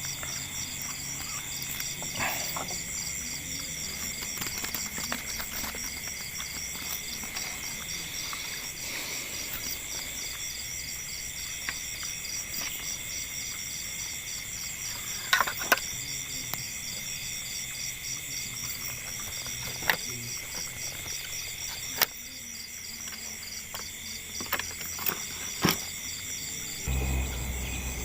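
Crickets chirring in a steady pulsing chorus, with a few sharp clicks now and then and a low rumble rising near the end.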